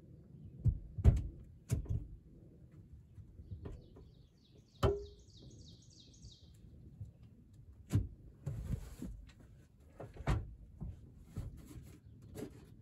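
Scattered knocks and clunks of a heavy Logan metal lathe and its reclined van seat being shifted, about six in all, one about five seconds in with a short metallic ring. A bird trills rapidly for about two seconds in the middle.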